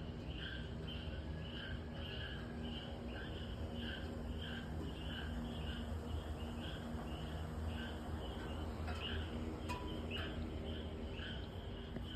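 A frog calling over and over in short, evenly spaced pulses, about two or three a second, over a steady low rumble.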